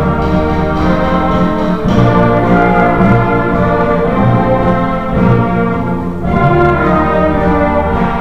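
School concert band playing: winds and brass holding full sustained chords that change every second or two over low bass notes.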